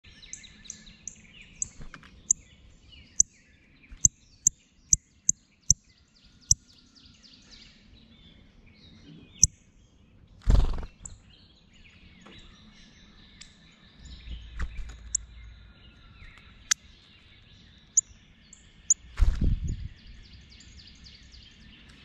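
Wild songbirds chirping and calling. A run of loud, sharp clicks comes in the first seven seconds, and low thumps come about ten and nineteen seconds in.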